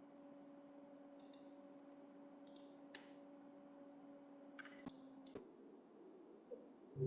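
Near silence: room tone with a faint steady hum that stops a little past halfway, and a few soft clicks.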